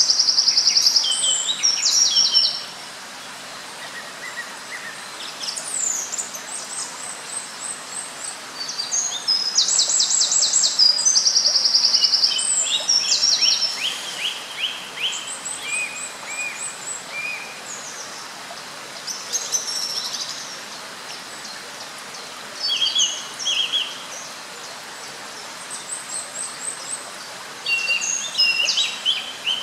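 Small songbirds singing: long, high trilled song phrases about ten seconds apart, with shorter chirps and calls between them, over a steady background hiss.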